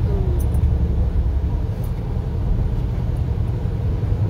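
Steady low rumble inside a car's cabin while driving in strong dust-storm wind: road noise from the tyres and wind buffeting the body.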